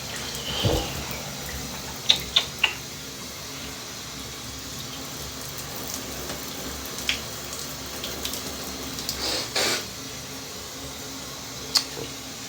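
Shower water running steadily, with a few short sharp clicks and one brief breathy sound about nine and a half seconds in.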